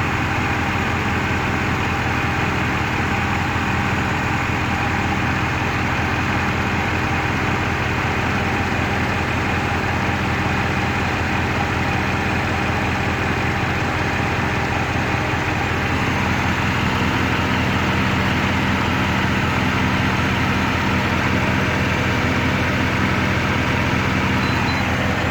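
Rover 3.5-litre V8 engine idling steadily, an engine with a misfire and a wobbling crank pulley.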